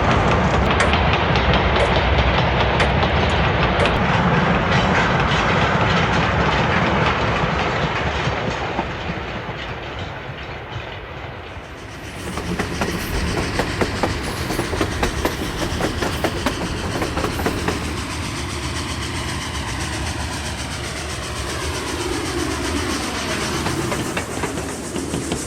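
Train rolling along railway track, its wheels clicking over the rail joints. The sound dips about ten seconds in and picks up again about two seconds later, then changes as if the train were passing by.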